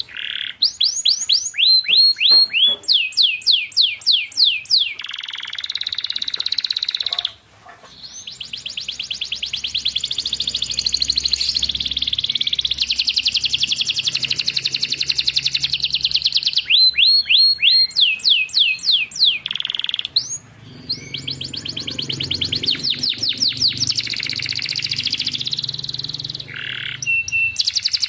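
Domestic canary singing: long, fast trills of repeated high notes alternating with runs of quick falling sweeps, with two short pauses, about seven and twenty seconds in.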